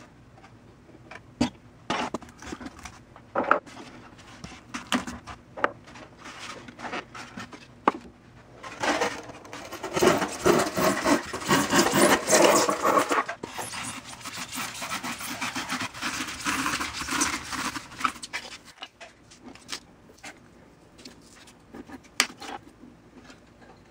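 Hands de-molding a cast concrete plaque: scattered knocks and clicks as the wooden mold pieces are handled, then a louder continuous stretch of noise from about nine to thirteen seconds in as the closed-cell insulation foam mold is broken and pulled away from the concrete, thinning to a few clicks near the end.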